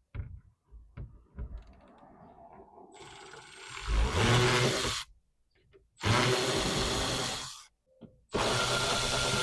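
Cordless power tool spinning out the T30 Torx bolts of an underbody cover in three runs of about two seconds each, after a few light clicks and knocks of handling.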